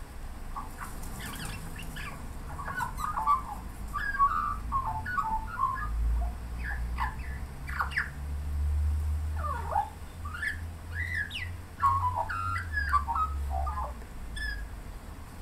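Australian magpie singing, a long run of quick, varied warbled and gliding notes with short breaks between phrases, over a low rumble through the middle.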